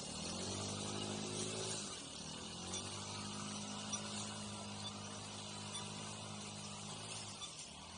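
Electric unicycle hub motor whining steadily under load on a climb, its pitch dipping about two seconds in and then holding steady until near the end, with wind rushing over the microphone.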